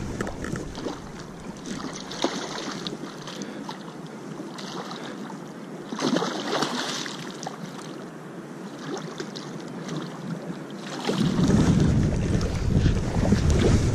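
Gusty wind blowing across the microphone over a steady hiss, with a heavy low wind rumble coming in about eleven seconds in.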